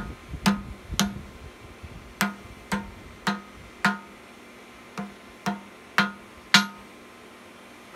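Hand hammer striking a thin steel round bar on an anvil as it is drawn down: about ten sharp, ringing blows, mostly in pairs about half a second apart with short pauses between.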